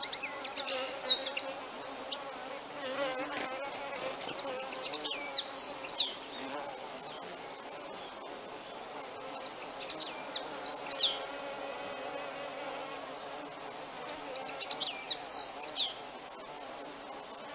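A songbird calling in three short bursts about five seconds apart, each a few high notes that sweep downward. Under them runs a steady, wavering buzzing drone.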